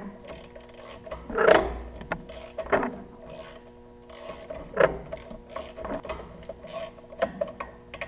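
A hand ratchet on a long socket extension clicking as it turns a fitting on a power steering line, with a few louder scrapes and knocks of the tool against metal. A faint steady hum runs underneath.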